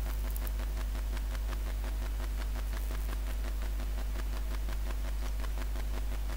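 Steady background noise: a low electrical hum with faint hiss and faint steady tones, unchanging throughout.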